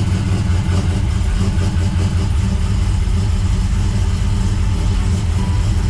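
LS1 V8 in a Holden VN Commodore idling loudly and steadily, run with the car up on stands so the freshly fitted 3.9 diff gears turn over; no clunking from the diff.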